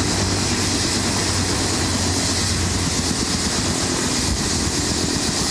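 Bell UH-1H Super Huey helicopter running on the pad, its turboshaft engine and two-blade main rotor turning steadily. The result is a constant high hiss over a low drone.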